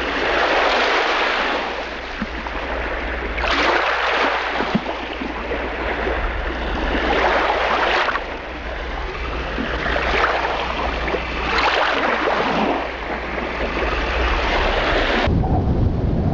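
Sea waves breaking on a shore, the surf swelling and falling back about five times, every two to four seconds. About a second before the end it cuts suddenly to a deeper, steadier rumble.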